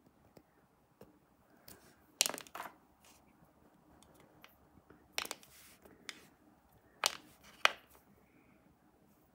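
Plastic Ash-Greninja toy figure being handled and posed on a wooden table: a handful of sharp plastic clicks and taps, a quick cluster about two seconds in and then single ones every second or so.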